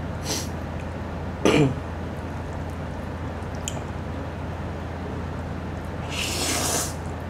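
A mouthful of Jjapagetti noodles slurped in, one hissy sucking sound of just under a second about six seconds in. Earlier there is a brief louder throat sound about a second and a half in, and a steady low hum underneath.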